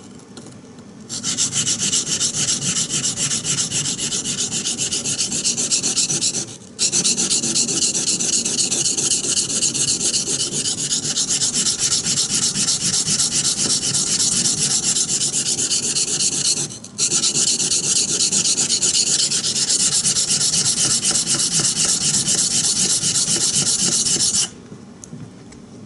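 A steel knife blade is stroked rapidly back and forth on a 220-grit Japanese water stone, a steady wet grinding rasp. The strokes start about a second in, pause briefly twice and stop shortly before the end.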